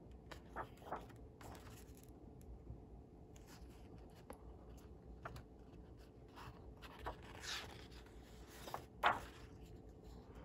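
Paper pages of a bound manual being turned and rubbed by hand: soft, scattered rustles and scrapes, the loudest near the end.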